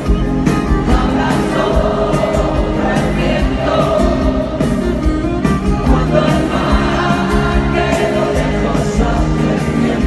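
A live pop-rock band playing, with singing over it.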